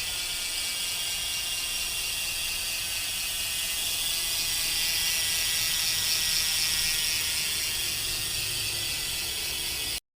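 Freehub of a Java Vesuvio road bike's rear wheel buzzing as the wheel coasts: a fast, dense run of pawl clicks that sounds rich. It cuts off suddenly near the end.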